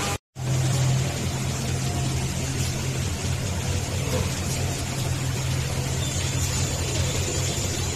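Woodworking CNC lathe machinery running: a steady low motor hum with an even noise over it. The sound drops out for a moment just after the start, then carries on unchanged.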